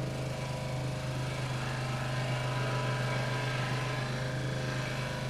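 Scroll saw running steadily with a low motor hum, its blade cutting through a wooden letter.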